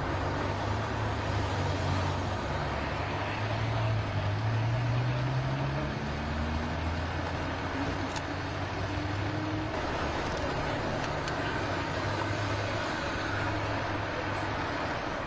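Road traffic: vehicle engines running in the street, one rising in pitch as it speeds up about four seconds in. The sound cuts off abruptly at the end.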